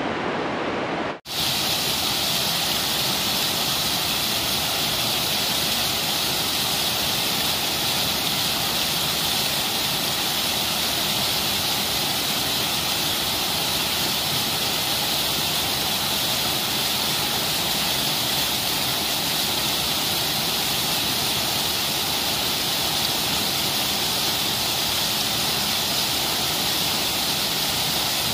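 Waterfall rushing, a steady unbroken hiss of falling water. About a second in it cuts out for an instant and comes back brighter.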